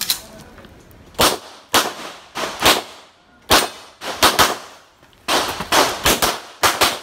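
A firearm fired in a rapid string of more than a dozen shots, many of them in quick pairs a quarter-second apart, each crack trailing a short echo.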